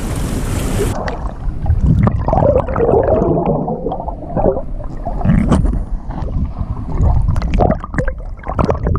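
Surf hiss that cuts off suddenly about a second in. After that, water gurgles and sloshes close to the microphone, with scattered knocks and clicks.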